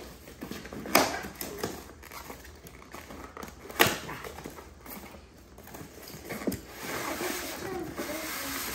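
Handling noise as a cardboard box and its packaging are opened: two sharp knocks, about one second and four seconds in, with rustling and light clatter in between and a steadier rustle near the end.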